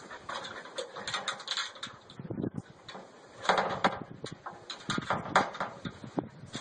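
A dog climbing an aluminium stepladder, its paws and claws knocking and scraping on the metal rungs in short clattering bursts.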